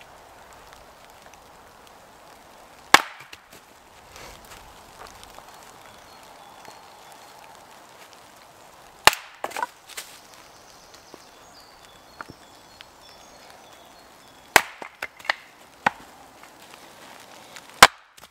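Small axe splitting a firewood log on a chopping block: four sharp strikes spaced several seconds apart, with a few lighter knocks after the second and third.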